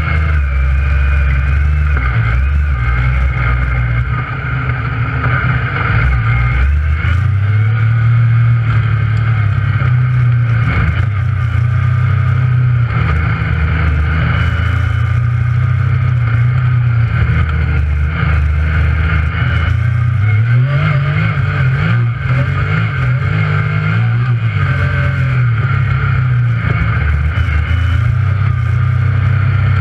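Yamaha YXZ1000R side-by-side's three-cylinder engine running as it is driven, heard from inside the cab, the revs rising and falling with the throttle.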